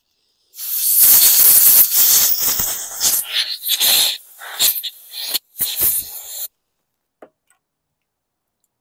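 Compressed air blasting debris off a lawn mower carburetor: a long hiss of about a second and a half, then a run of shorter bursts that stop about six and a half seconds in.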